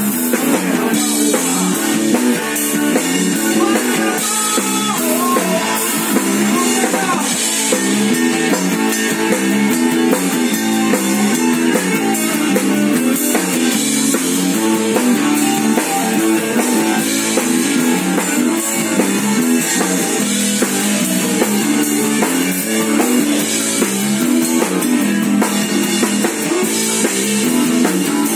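A rock band playing live, the drum kit loud and close, with guitar over a steady beat.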